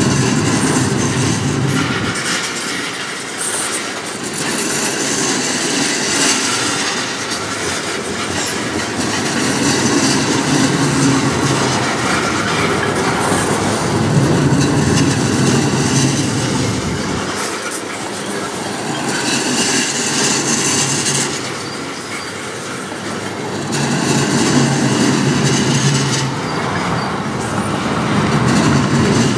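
Freight train of tank cars rolling past: steel wheels running on the rails in a steady, loud rumble that swells and eases as the cars go by.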